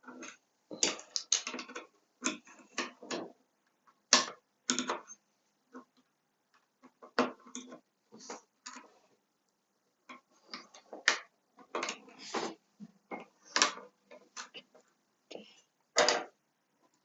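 Irregular plastic clicks and snaps of mechanical keyboard switches being pulled out and pressed back into the board, some single and some in quick clusters.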